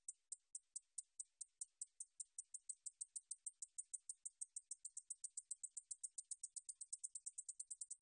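Japanese bush katydid (줄베짱이, Ducetia japonica) singing: a long series of short, high, dry ticks. They come about five a second at first and speed up to nearly ten a second.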